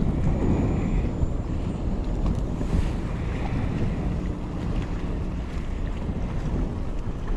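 Strong wind buffeting the microphone: a steady, heavy low rumble, with water washing around a small boat.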